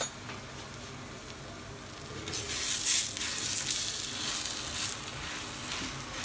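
Paratha frying in oil on a flat iron tawa: a soft steady sizzle that grows into a louder crackling sizzle from about two to five seconds in, as tongs move the paratha on the griddle.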